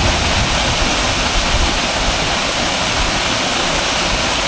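Waiau Falls waterfall: a steady, even rush of falling water.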